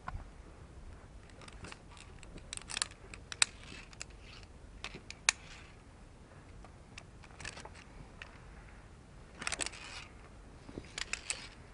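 Irregular sharp clicks and short scrapes of via ferrata gear as a climber moves down the route: carabiners and hardware knocking against the steel cable and rock. The two loudest clicks come about three and a half and five seconds in, with bunches of scraping clicks near the end.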